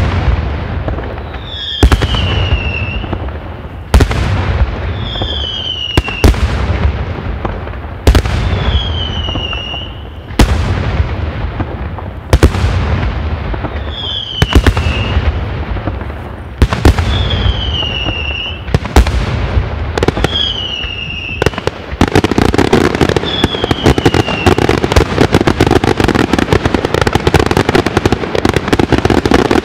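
Daytime fireworks: aerial shells bursting about every two seconds, each sharp bang followed by a short falling whistle. After about twenty seconds this turns into a continuous rapid barrage of crackling bursts.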